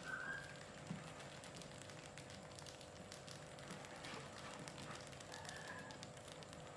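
Faint scratching and light clicking of mice scurrying over the plastic bucket rim and wooden ramps, with two short high chirps, one about the start and one near the end.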